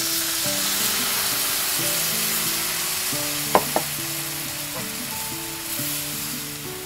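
Cold milk sizzling as it is poured into a hot frying pan of browned chicken wings, onion and enoki. The sizzle is loudest as the milk goes in and slowly dies down as the pan cools. Two sharp clicks come a little past halfway.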